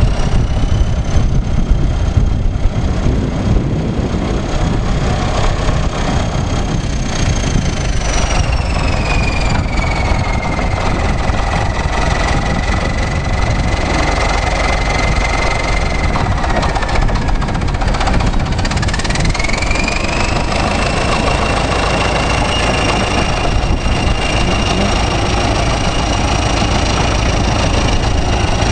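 Old Caterpillar D7 crawler dozer's diesel engine running with a steady heavy rumble. A high whine over it sinks in pitch about a quarter of the way in, dips again past halfway, then climbs back and holds.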